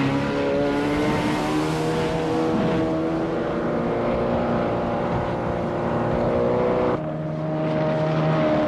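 Glastron GT-150 speedboat engines running at high speed. The steady engine note drifts a little in pitch and changes abruptly about seven seconds in.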